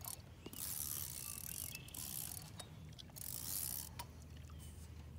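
Fishing reel being cranked in spurts of about a second, its gears whirring with ratcheting clicks, as a hooked northern pike is reeled in under load.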